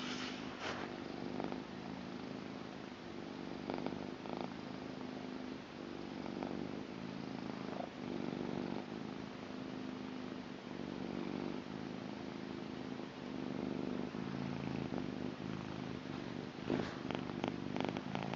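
Blue British Shorthair cat purring steadily, close to the microphone. A few brief clicks or rustles come near the end.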